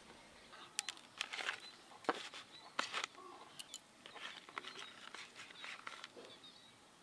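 Breadcrumb-coated chicken cutlets being set one by one into a plastic tub: a string of light clicks and knocks against the plastic, with brief scuffing.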